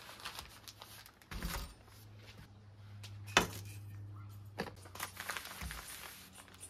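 A plate and a paper-wrapped package set down on a stainless steel counter, with a few knocks and one sharp clack. Butcher-type paper then crinkles as the package is handled, over a low steady hum.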